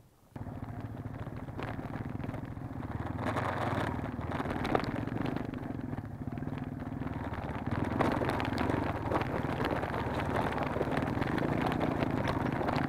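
Motorcycle engine running under load over rough off-road ground, getting louder about eight seconds in, with scattered knocks and rattles.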